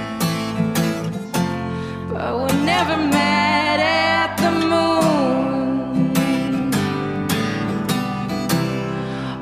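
Music: a strummed acoustic guitar, with a voice singing a bending melody line from about two seconds in.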